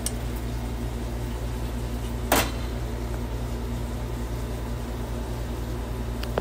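A kitchen appliance's fan motor running with a steady electrical hum and whir. One sharp click about two and a half seconds in.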